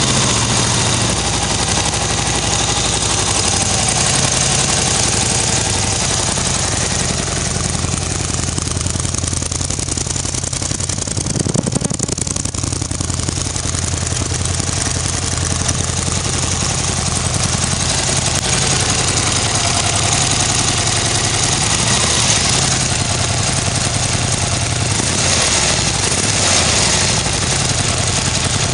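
2013 Harley-Davidson Dyna Street Bob's 103 cubic inch Twin Cam V-twin idling steadily through loud free-flow exhaust pipes.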